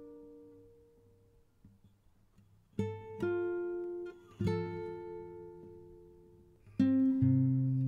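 Background music: an acoustic guitar playing slow, sparse plucked chords, each left to ring and fade. The first chord comes nearly three seconds in after a quiet fade, and a few more follow, about one to two seconds apart.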